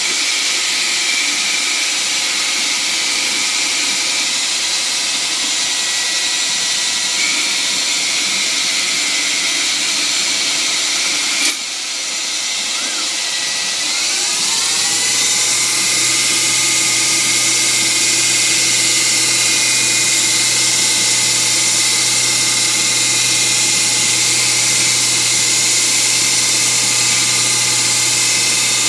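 CNC-converted Grizzly G0602 benchtop lathe running under program control, a steady machine whine made of several tones. About eleven seconds in there is a sharp click and a brief drop, then the whine rises in pitch over a couple of seconds and holds steady at the higher speed.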